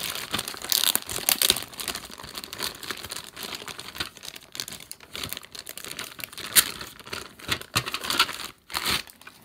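Clear plastic packaging bag crinkling and crackling as it is torn open and handled, with a rapid run of sharp crackles that eases off near the end.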